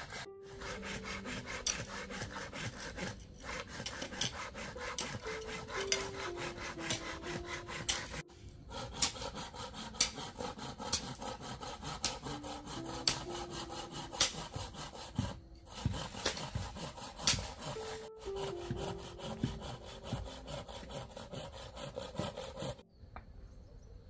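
A blade working bamboo: rapid, even rasping strokes that break off briefly a few times and stop near the end. A soft melody of background music sits underneath.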